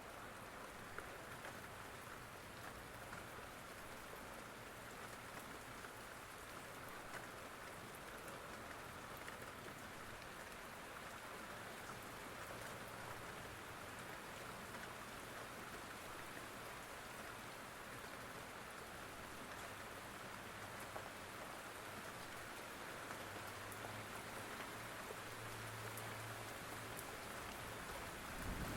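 Steady rain falling, an even hiss of raindrops on surfaces, with a faint low rumble under it near the end.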